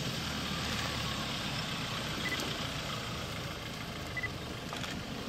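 Vehicle engine idling steadily.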